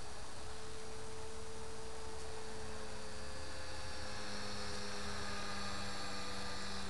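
Align T-Rex 450 Pro electric RC helicopter in flight at a distance: a steady pitched hum from its brushless motor and rotors, drifting slightly in pitch, with a higher whine growing stronger from about four seconds in.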